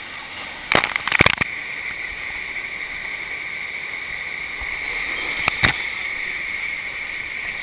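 Steady rush of water from a FlowRider sheet-wave machine, with a quick cluster of sharp knocks about a second in and two more knocks a little past the middle.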